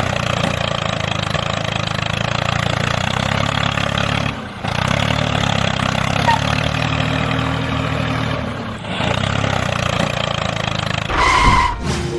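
Small engine of a homemade mini tractor running steadily, the sound briefly dropping out twice. Near the end comes a short high tone.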